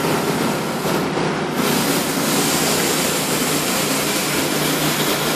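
A steady, loud rushing hiss with a faint low hum underneath, unchanging throughout.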